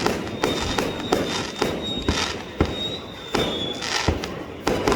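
Fireworks going off: an irregular run of sharp bangs, a few each second, with a thin high whistle running for about three and a half seconds through the middle.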